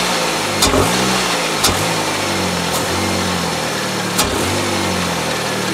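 Mazda 626's 2.0L FS four-cylinder engine, fitted with an open cone air filter, blipped up from idle and falling back several times, its intake sucking air through the filter. A few sharp clicks come with some of the blips.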